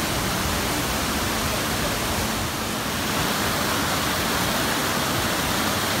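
Fast-flowing stream rushing over rocks: a steady, even rush of water with no break.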